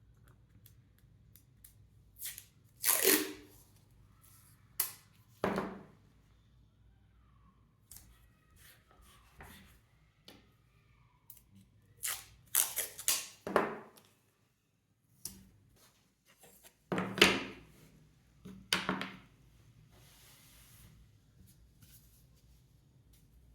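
Scattered short scraping and rustling handling noises, each under a second, as small wooden pieces are handled and set in place for gluing, with a cluster of them about halfway through and another near three quarters of the way.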